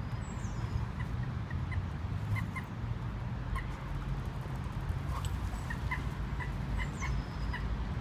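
Scattered short calls from water birds on the canal, coming in loose clusters, over a steady low rumble.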